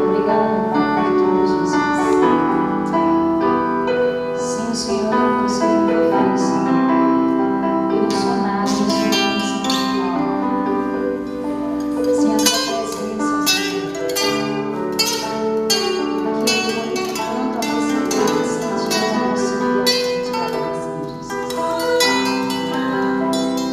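A live band playing music: sustained chords with a plucked, harp-like sound, and regular cymbal or percussion strikes joining in about eight seconds in.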